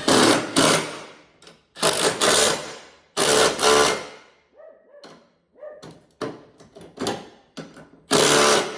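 Impact wrench running in short bursts, mostly in pairs, about seven in all, tightening the new blade bolts on a lawn mower deck.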